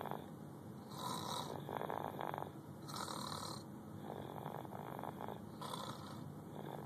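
A sleeping man snoring, about five rasping breaths in a row, roughly one a second. The uploader takes this snoring for a sign of sleep apnea.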